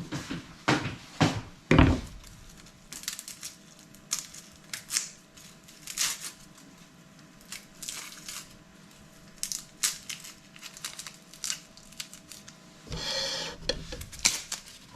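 Kitchen food-preparation handling: irregular knocks and clicks, with heavier thumps in the first two seconds. About thirteen seconds in, a burst of rushing noise lasts about a second.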